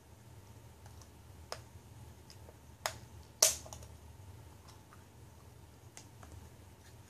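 Small plastic Kinder Surprise toy capsule being handled and prised open: a few sharp, isolated clicks, the loudest about three and a half seconds in.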